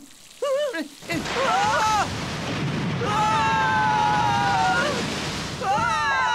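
A loud rushing, crashing noise of churning sea waves that begins suddenly about a second in, with cartoon voices crying out over it, including one long held high cry in the middle.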